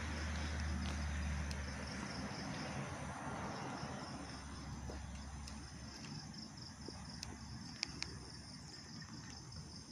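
Crickets chirring steadily at night, with the rumble of a passing road vehicle fading away over the first few seconds.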